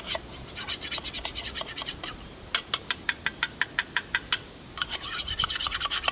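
Quick, evenly paced rasping scrapes, about four strokes a second, in three runs with short pauses between them. The scraping is done by hand while tinder is readied for a fire.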